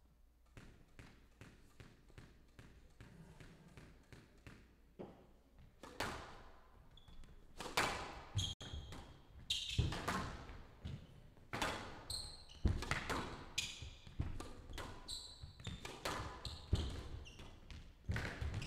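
A squash rally on a glass-walled court: the ball is struck hard by racquets and smacks off the walls, with short high shoe squeaks on the court floor between shots. It is quiet for about the first six seconds, then the hits come thick and fast.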